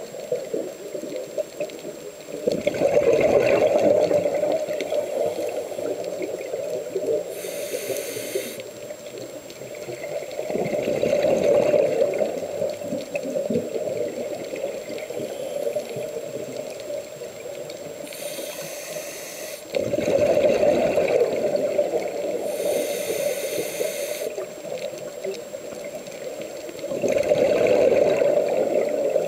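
Scuba diver breathing through a regulator underwater: four rushes of exhaled bubbles about eight seconds apart, with a short hiss from the regulator on the inhalations in between.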